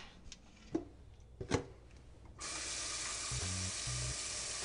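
A couple of light knocks, then about halfway through a kitchen faucet comes on and water pours steadily into a stainless steel stockpot filled with chicken bones, vegetables and herbs.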